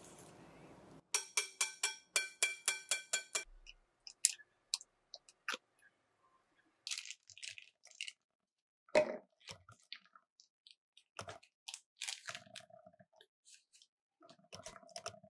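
A wire whisk scrapes around a glass mixing bowl. Then it is tapped on the bowl about nine times in two seconds, each tap ringing at the same pitch, followed by scattered rustles and clicks of a plastic piping bag being filled with batter and clipped shut.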